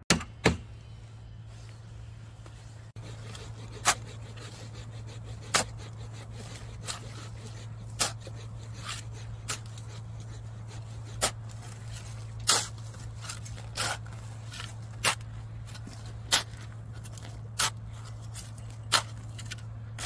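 A series of sharp knocks, roughly one every second or so, over a steady low hum.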